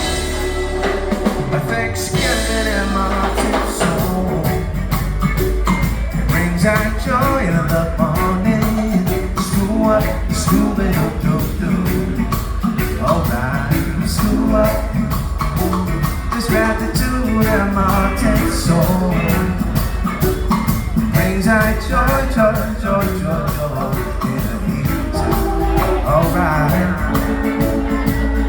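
Live band playing a steady groove with drum kit and guitar over a heavy low end that comes in about two seconds in.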